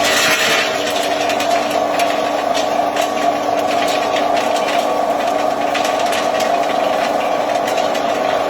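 A 300-type feed pellet mill running under load, pressing grass feed into pellets: a steady motor hum with a constant whine and frequent small ticks and rattles.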